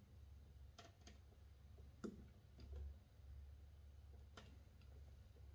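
Near silence: a low steady hum with a few faint, irregular clicks.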